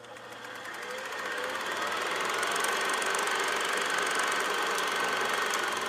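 Film projector running, a sound effect: a fast steady mechanical clatter over a hiss, fading in over the first two seconds.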